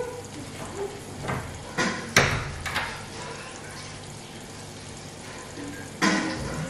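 A few sharp knocks and clatters, the loudest about two seconds in and another near the end, over a faint steady hiss of food cooking in a covered pot on the stove.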